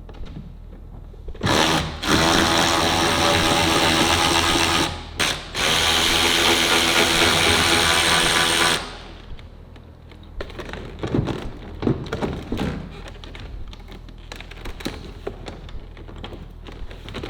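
A cordless power tool runs in two long spells, with a short break about five seconds in, backing out a seat bolt. Then it stops, and tools and loose parts click and knock as they are handled.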